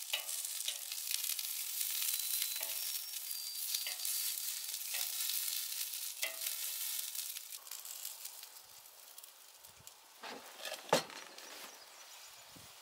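Sausages sizzling on a hot flat-top griddle, with metal tongs clicking and scraping against the griddle about once a second as they are turned. The sizzle fades about eight seconds in, and a few sharper scrapes and knocks follow near the end.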